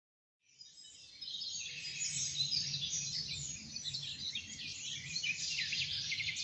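A dense chorus of small birds chirping and twittering, starting about a second in, over a faint low hum.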